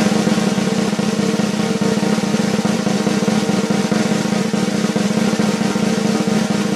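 Steady snare drum roll that starts abruptly.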